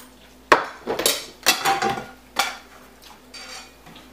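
Serving spoon and cutlery clattering and scraping against ceramic plates and glass serving dishes as food is hastily dished out: a quick run of clatters, the first the loudest, then a few faint knocks near the end.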